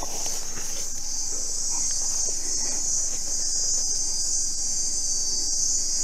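Dense, steady chorus of insects, high-pitched and unbroken.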